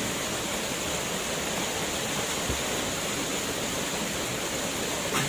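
Waterfall crashing steadily into a pool, a constant roar of falling water.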